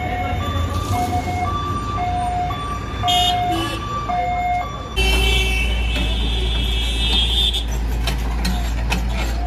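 A two-tone vehicle warning alarm, a high note and a low note alternating about once a second, over diesel engines running. About five seconds in it cuts off abruptly and a louder, steady diesel engine drone takes over.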